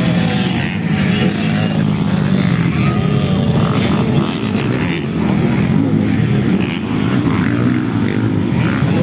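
Motocross dirt bikes racing past, engines revving up and down.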